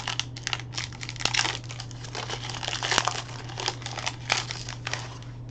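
Foil wrapper of a Donruss Optic basketball card pack being torn open and crinkled in the hands: a run of irregular crackles and rips that stops near the end.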